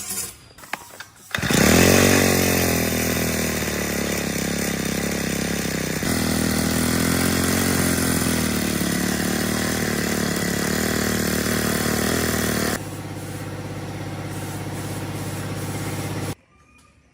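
Small lawn mower engine catches about a second in, rises in pitch and runs steadily. It runs more quietly for the last few seconds, then stops abruptly.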